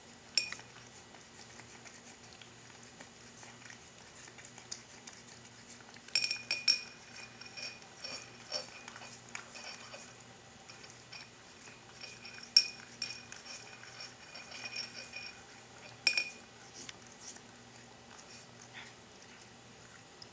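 A cat lapping milk from a glazed ceramic bowl: soft, quick lapping, with a few sharp clinks as the bowl is knocked and rings, a cluster of them around six seconds in and single ones near the start, around twelve seconds and around sixteen seconds.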